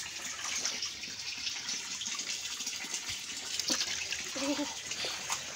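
A steady rush of water with splashing in a plastic tub as tilapia are grabbed by hand and thrash in the water.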